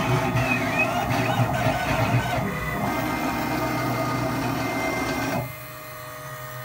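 Stepper motors of a CNC machine driving its axes: a whine whose pitch sweeps up and down as the motors speed up and slow down, then runs steady. It stops suddenly about five seconds in, leaving a fainter steady hum.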